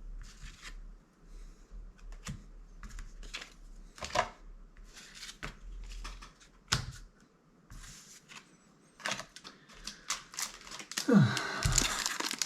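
Magic: The Gathering trading cards being handled on a table: a string of irregular light clicks and taps as cards are flicked and laid down, then a louder crinkly rustle near the end, like a booster pack wrapper being handled.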